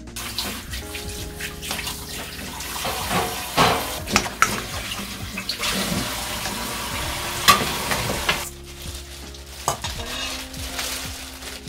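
Plastic rice paddle stirring and folding rice in a stainless steel mixing bowl, with scraping and light knocks against the metal. The stirring stops about two-thirds of the way in, leaving soft background music.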